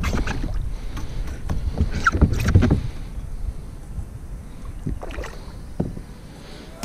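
Knocks and bumps on a plastic fishing kayak as the angler handles the rod, over a low wind rumble on the camera microphone. The knocks come thick for about three seconds, then thin out to a few scattered taps.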